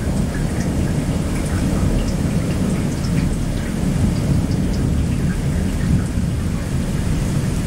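Thunder rumbling low and steadily, with faint scattered ticks of a few raindrops.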